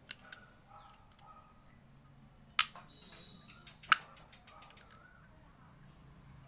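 Hands handling the small plastic bottle and parts of a homemade hand fan: a few sharp plastic clicks, two of them loud, about two and a half and four seconds in.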